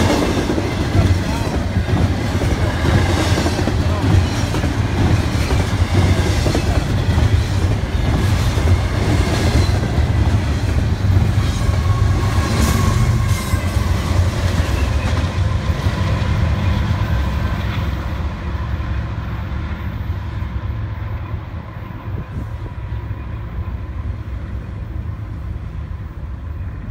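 BNSF double-stack intermodal freight train passing close by: a loud, steady rumble of wheels on rail with clickety-clack over the joints. A diesel locomotive goes by about halfway through, then the train noise fades as it moves away.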